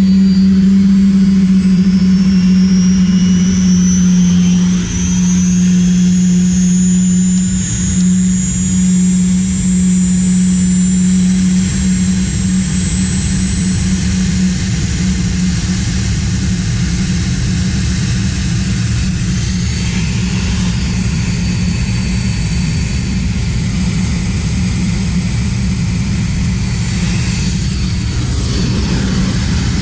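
Boeing gas turbine spooling up after light-off, its high whine rising steadily for about fifteen seconds and then holding at a steady pitch as it settles at a 50 percent idle. A loud low hum underneath fades out about twelve seconds in, leaving the turbine's steady rumble and whine.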